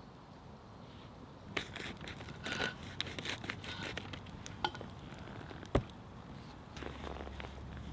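Crinkling and tearing of a foil-lined coffee bag as it is handled and slit open across the top with a knife. One sharp knock about two-thirds of the way through, as the knife point is driven into a wooden stump.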